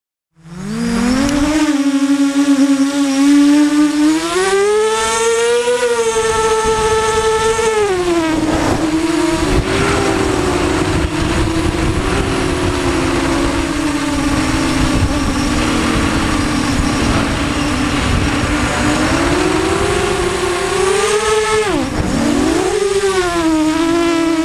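Cobra 1960KV brushless motors and propellers of a QAV250 racing quadcopter on a 4S battery, heard from its onboard camera: a loud whine that starts about half a second in, climbs in pitch with throttle about four to six seconds in, drops back, then dips sharply and recovers near the end, over wind rush.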